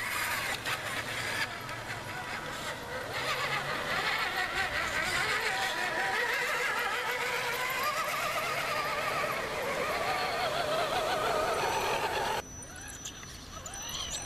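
Electric motor and gearbox whine of an RC scale crawler truck, rising and falling in pitch as the throttle is worked over rough ground. It drops suddenly near the end.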